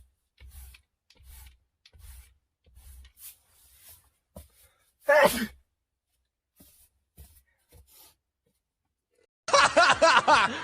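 A person sneezing once about five seconds in, a short sharp burst whose pitch falls. Near the end comes a loud, dense burst of sound about a second long.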